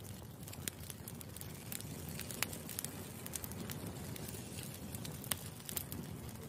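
Plastic packaging and bubble wrap crinkling and crackling as a parcel is opened and plastic hair claw clips are unwrapped and handled, with scattered sharp clicks throughout.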